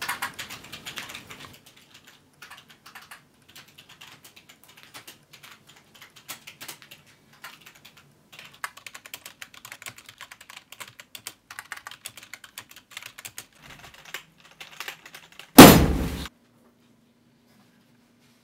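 Typing on a computer keyboard: rapid key clicks in uneven runs. Near the end a sudden loud burst lasting under a second cuts in and ends the typing.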